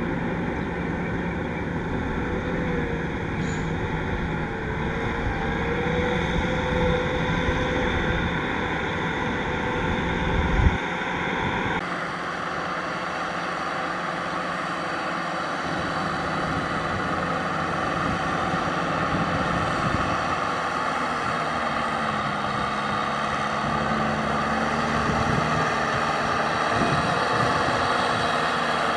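Kubota M6040SU tractor's diesel engine running steadily under load while it pulls a rotary tiller through flooded paddy mud. A single low thump comes about ten and a half seconds in, and the sound shifts abruptly about twelve seconds in.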